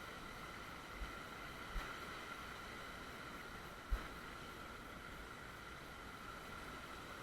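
Faint steady rushing of a small creek, with a few soft low thumps about one, two and four seconds in, the last the loudest.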